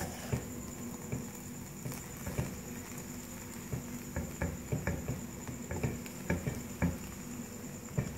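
Spatula stirring and tossing cooked rice in a non-stick wok: soft, irregular scrapes and taps against the pan, several a second.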